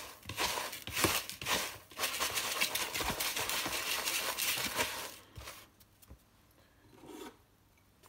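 A hand stirring and scraping through dry, crumbly egg food mix in a plastic tub: a continuous gritty rustling that stops about five and a half seconds in.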